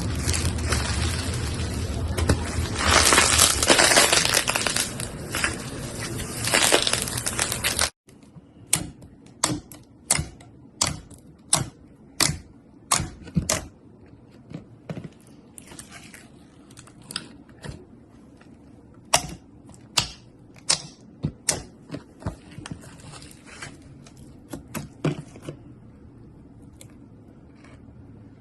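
Slime being worked by hand: dense crackling for about eight seconds, then, after a sudden cut, a long run of sharp separate clicks and pops that thin out near the end.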